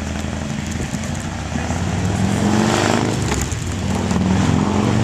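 Motor vehicle engine on the street accelerating, its pitch rising and the sound growing louder about two seconds in and again near the end.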